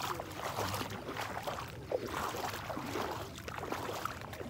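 Shallow floodwater sloshing and splashing irregularly, in uneven bursts.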